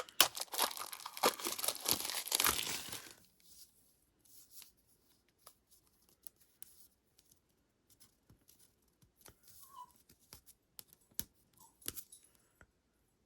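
Packaging crinkling and tearing as a gift-tag sticker roll is unwrapped, dense for about the first three seconds. After that come only faint scattered rustles and clicks of handling.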